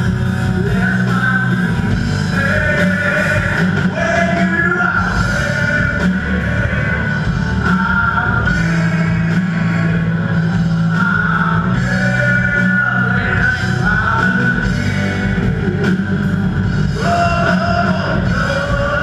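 Live rock band playing loudly through a PA: electric guitars, bass and drum kit, with a lead singer's voice over them.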